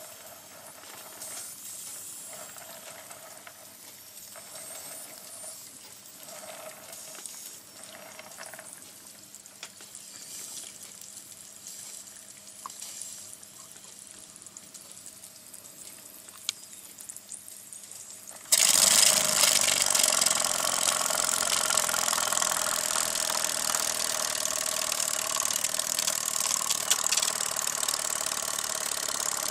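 Faint hiss with a few small clicks, then about two-thirds of the way in a sudden loud, steady, fast clatter and hiss as the MF Twin model live steam engine runs.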